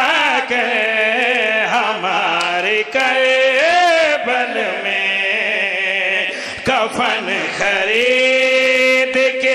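A zakir's amplified male voice chanting a melodic majlis recitation for Husain, with long held notes that waver in pitch and short breaks for breath.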